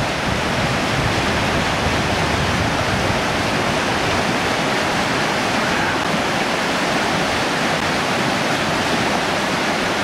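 River rapids, whitewater rushing over rocks in a steady, loud rush of water.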